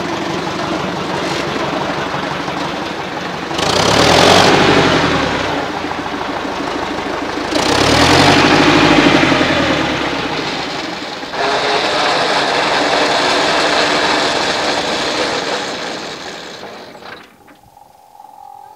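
Tractor engine running, revved up twice with the pitch rising and falling back, then held at higher revs for a few seconds. Near the end it runs down and stops.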